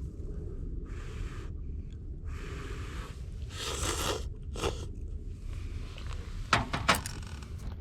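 A person eating a bowl of noodles: several short, noisy bursts of eating and chewing, the loudest about four seconds in, then a few sharp clicks near the end, over a steady low rumble.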